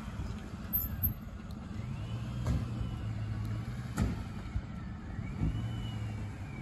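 A motor vehicle's engine hum that swells twice, each time for a second or two, with a faint rising-then-falling whine above it. A few sharp knocks sound along the way.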